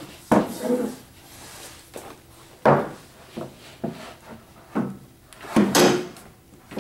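Treadmill tail roller being handled inside the running belt and set into the frame's end brackets: a series of short knocks and clunks, the loudest about six seconds in.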